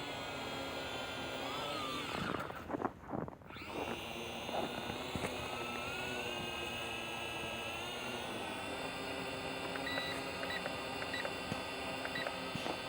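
Small toy quadcopter drone's electric motors and propellers whining, the pitch gliding up and down as the throttle changes. A few knocks come about two to three seconds in, and several short high beeps sound near the end.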